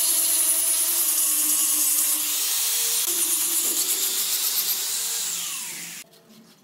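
Handheld angle grinder with a sanding disc running against hardwood, a steady high whine with the hiss of the disc on the wood. Near the end it is switched off: its whine falls in pitch as it winds down, and the sound stops about six seconds in.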